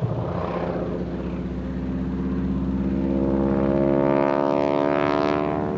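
North American SNJ-5 Texan's nine-cylinder Pratt & Whitney R-1340 radial engine and propeller during an aerobatic pass, growing louder and rising in pitch to a peak about four to five seconds in.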